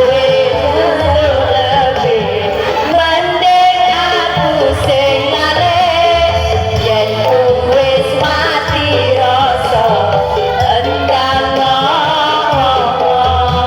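Music with singing: a wavering sung melody over a steady bass.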